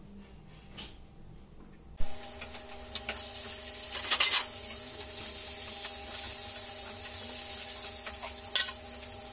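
Katla fish pieces sizzling as they fry in hot oil in a kadai, over the steady hum of a kitchen chimney's exhaust fan. The sizzle and hum start abruptly about two seconds in, with a brief clatter a couple of seconds later.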